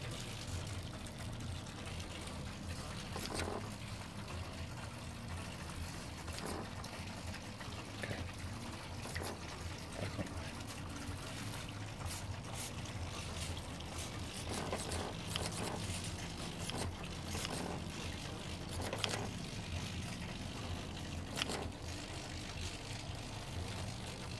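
Small hobby servos of an animatronic eye mechanism moving the eyes and eyelids in short, scattered whirs and clicks, over a steady low background hum.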